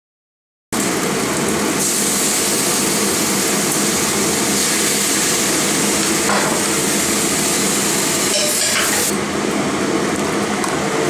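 Steady sizzling hiss as browned chicken pieces are pushed with chopsticks from a hot frying pan into a clay pot, with a few clicks and scrapes of the chopsticks on the pan partway through. The sound cuts in suddenly about a second in.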